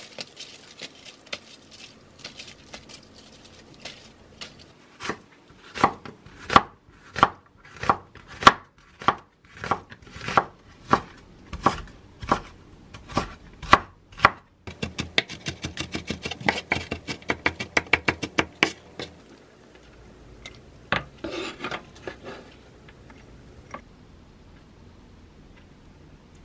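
Chef's knife slicing an onion on a wooden cutting board: evenly spaced cuts about two a second, each a sharp knock of the blade on the board, then a quicker run of lighter cuts.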